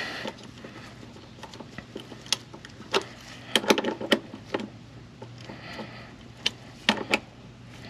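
Irregular sharp metal clicks and clinks, with a quick run of them around the middle, as a wrench turns a bolt extractor biting into a rounded-off oil pan drain plug. A steady low hum runs underneath.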